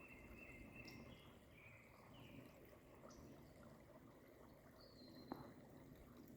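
Birds giving short, high whistled calls, some held briefly at one pitch and some stepping down, repeating every second or two. The calls are faint over a low, steady outdoor background hiss, with a single sharp click about five seconds in.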